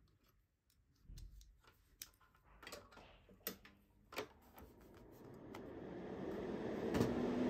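Scattered light clicks and taps of tools being handled. Then, about four and a half seconds in, a small electric motor in the manicure equipment starts and builds over a couple of seconds to a steady hum with a low tone.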